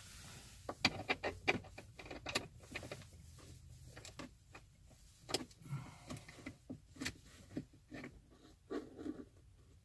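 Hand tools and bolts being handled on a Jeep Wrangler's windshield-frame bolts: quiet, irregular small clicks and taps of metal on metal, busiest in the first two seconds and sparser after.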